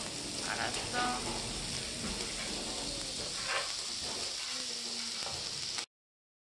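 Pork jowl and pork belly sizzling on a round Korean grill pan with onion and mushrooms: a steady frying hiss that cuts off suddenly near the end.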